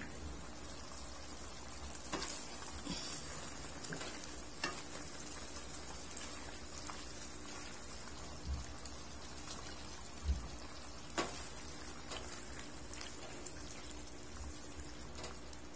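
Chicken stew simmering in a non-stick wok, a steady bubbling hiss, while a silicone spatula stirs through it. A few sharp clicks and dull knocks come from the utensils and the pan.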